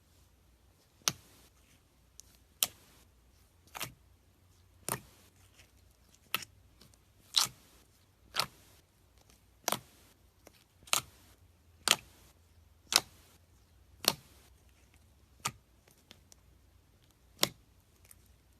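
Slime being handled, giving a series of sharp clicking pops, roughly one a second and somewhat irregular.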